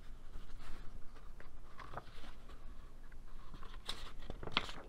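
Faint rustling and clicking of a paperback picture book's pages being handled and turned, with a few sharper clicks near the end.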